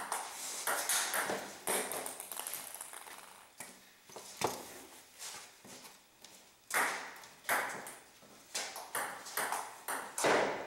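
Table tennis rally: the celluloid-type ball clicking sharply off paddles and the table top in an irregular run of hits.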